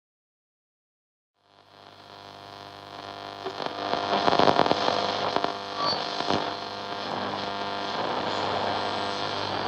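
Silence for about a second and a half, then a dense droning noise fades in and builds: a steady hum of many held tones under crackling static, the opening of an experimental electronic track.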